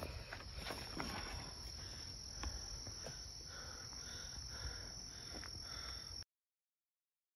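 Steady high-pitched insect chorus, like crickets, with scattered faint clicks and a softer chirp repeating about twice a second in the middle. The sound cuts off abruptly to dead silence about six seconds in.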